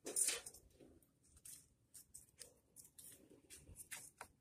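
Faint scattered rustles and light clicks of handling as the de-icer's coiled power cord is held and moved at the steel bowl of water, with a short louder rush of noise right at the start.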